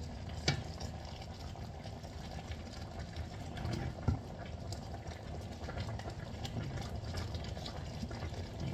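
Chicken sinigang simmering in a little broth in a wok, stirred with two wooden spatulas, with a few light knocks of wood against the pan, one about half a second in and one about four seconds in.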